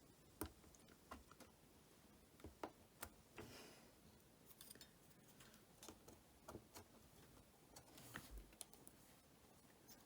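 Faint, scattered small clicks and two brief light scrapes of small repair tools working against an iPhone 8 screen assembly, prying under the home button's adhesive.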